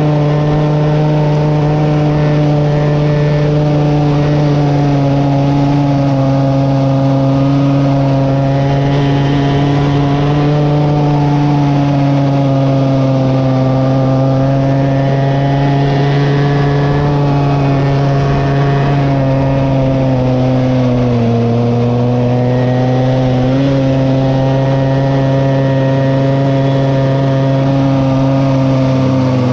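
Small carbureted petrol engine running at a high, nearly constant speed with no letting off. Its pitch sags slightly about 21 s in, then steadies. The rider says the throttle was stuck wide open the whole time.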